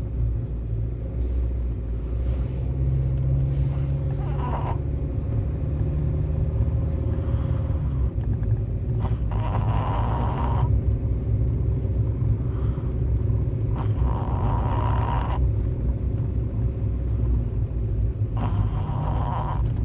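A small dog snoring in deep sleep, four snores about five seconds apart, over a steady low rumble.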